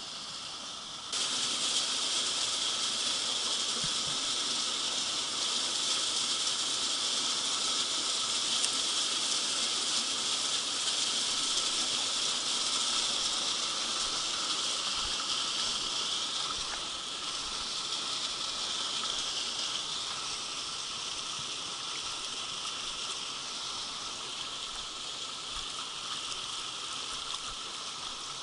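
Shallow stream water running over stones, a steady hiss that comes in suddenly about a second in and eases slightly later on.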